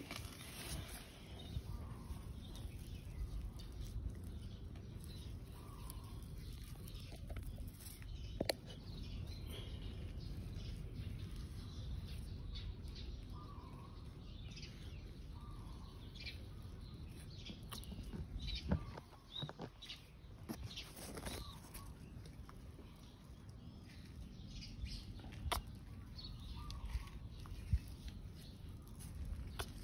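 Faint outdoor ambience: birds chirping now and then over a low steady rumble, with a few short clicks.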